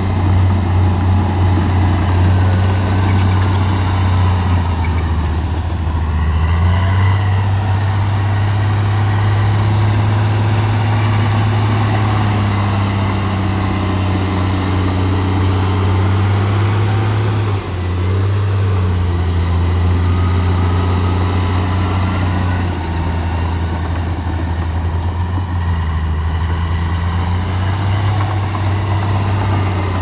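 Bulldozer diesel engine running steadily with a deep, continuous drone. Its pitch shifts in steps a few times as the load and throttle change, with a brief dip about seventeen seconds in.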